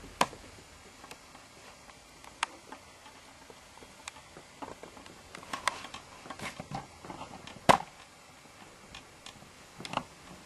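Scattered sharp clicks and light knocks in a small, quiet room. The two loudest come about a quarter second in and near eight seconds, with a cluster of softer taps between about five and seven seconds.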